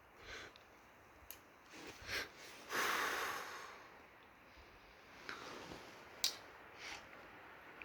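A few short breathy sniffs close to the microphone, the longest about three seconds in, with a couple of sharp clicks.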